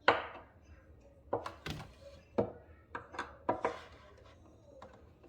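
A series of hard knocks and thunks of objects being set down and handled, about eight in the first four seconds, the first the loudest.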